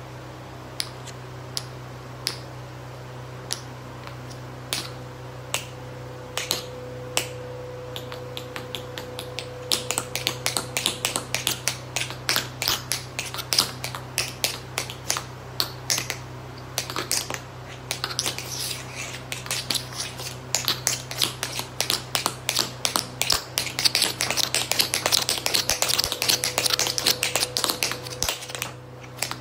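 Metal taps on tap shoes striking a hard floor: single taps a little under a second apart at first, then from about ten seconds in quick, dense runs of taps. A steady low hum lies underneath.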